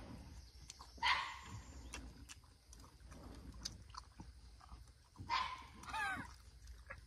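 A dog barking twice, then giving a short wavering, high-pitched call near the end.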